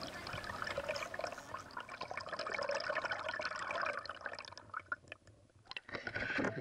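Canoe paddle stroking through lake water: splashing and gurgling with small drips, swelling over the first four seconds and fading, then another short splash near the end.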